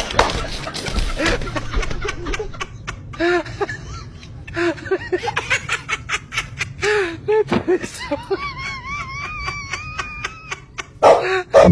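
Snickering and laughter in short bursts, among scattered sharp clicks, with a wavering pitched sound a little past the middle.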